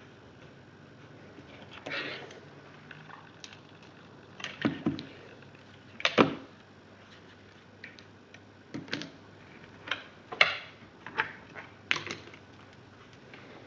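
Irregular clicks, knocks and small rattles of test leads and clip connectors being unplugged and reconnected while an ammeter is moved to another point in a circuit, about a dozen sharp handling sounds spread through the clip.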